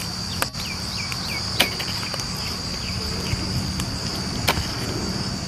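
Steady high-pitched insect chirring in a field, with a few faint short chirps and a few sharp clicks.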